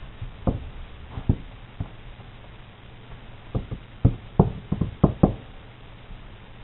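Light knocks and thumps of a munchkin kitten's paws and body on a hard floor as it pounces and plays: a few scattered knocks, then a quick run of about eight in the second half.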